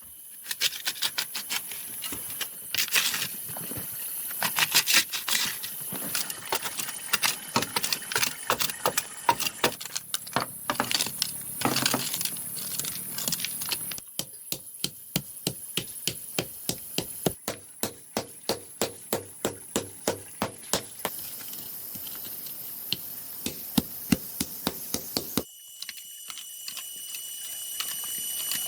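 Many sharp knocks of hand-tool work on bamboo, fast and irregular at first, then evenly paced at about three strikes a second through the middle, over a steady high hiss.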